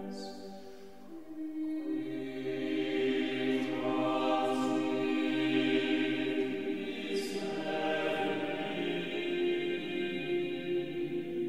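Background music: voices singing slow, held choral chords that change every few seconds.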